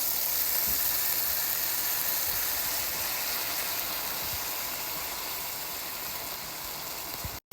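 Ground beef cooking in taco seasoning and water in a pan, a steady sizzle that slowly eases and breaks off abruptly near the end.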